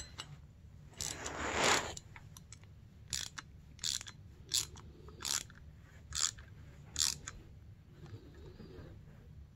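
Metal tool turned by hand in the threaded zerk hole of a powder-coated snowmobile spindle: a scraping rasp about a second in, then a run of sharp crunching clicks roughly every 0.7 s as the metal bites in the threads.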